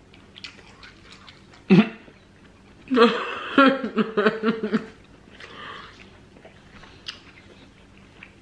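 Close-up mouth sounds of someone eating: soft chewing clicks and smacks, with a short stretch of voice a little after the middle.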